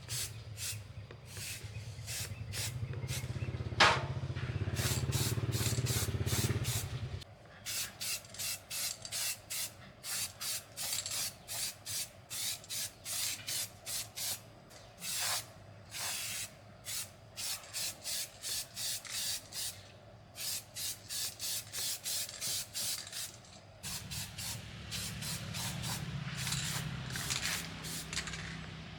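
Rhythmic rasping strokes, about three a second, like sanding, filing or brushing by hand. A low motor hum runs under them for the first seven seconds and comes back about five seconds before the end.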